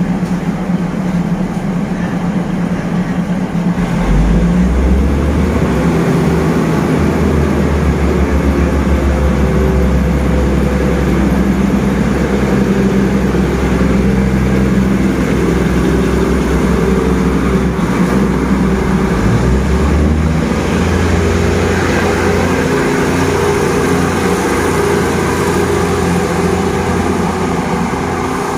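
Diesel railcar train pulling out of the station, its underfloor engines running hard and the wheels rolling on the rails. The engines strengthen about four seconds in, and their note shifts about twenty seconds in.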